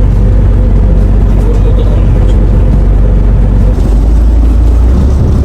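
Charter fishing boat under way: a loud, steady engine rumble with rushing noise, the low rumble shifting slightly about four seconds in.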